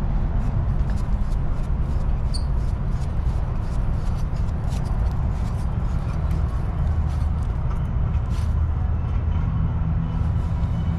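Brass fitting of a propane refill hose being screwed onto a 1-lb propane cylinder by gloved hands: many small clicks and taps from the metal parts. A steady low rumble runs underneath and is the loudest thing.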